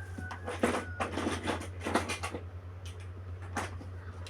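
Irregular light taps, clicks and scrapes of plastic Play-Doh toys being handled, over a steady low hum.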